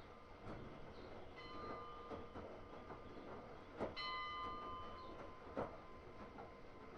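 Hotpoint-Ariston AQ8L 09 U washing machine running: irregular soft clicks and knocks from the tumbling drum, twice followed by a short ringing metallic tone that dies away.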